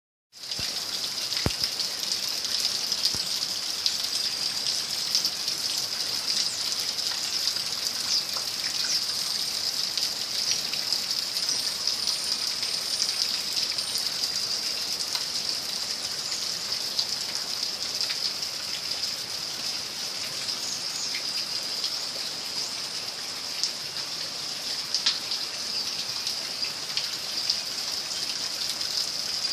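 Floodwater rushing with a steady hiss.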